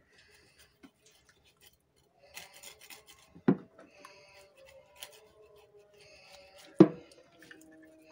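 Ribbonfish being cut up by hand: light scraping and clicking, with two heavy chops, one about three and a half seconds in and a louder one near seven seconds.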